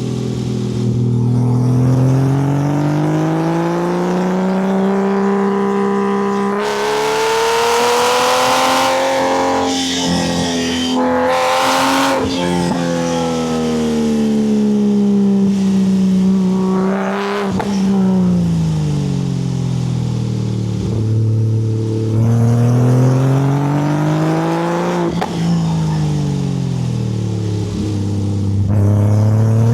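Porsche 964's air-cooled flat-six through a custom exhaust, driven hard: the engine note climbs under acceleration, falls away and climbs again several times. Two short bursts of rushing noise come in the first half.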